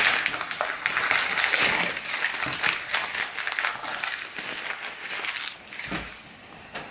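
Thin magazine paper rustling and crinkling as pages are handled and turned, a dense crackle that thins out about five seconds in, then a soft thump near the end.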